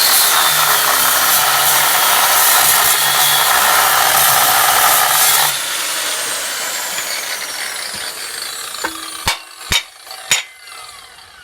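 Large angle grinder cutting through a steel bolt, loud and grating. About five and a half seconds in it comes off the cut and its pitch falls as the disc spins down. A few sharp metallic knocks follow near the end.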